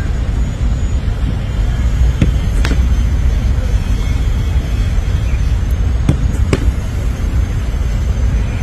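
Footballs kicked in goalkeeper shot-stopping drills: twice, a sharp thud of the kick and about half a second later the slap of the ball into the keeper's gloves, over a steady low rumble.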